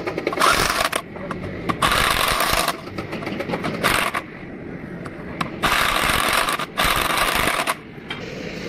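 Workshop tool noise on gearbox parts: about six harsh, hissing-scraping bursts, each up to about a second long, with short gaps between them.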